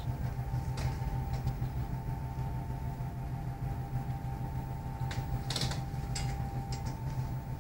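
Steady low machinery hum of a waste-to-energy plant's refuse bunker, with a faint steady whine above it. A few brief clicks come about five and a half seconds in.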